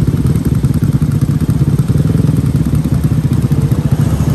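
Motor scooter engine running at a steady, loud idle with a rapid putter.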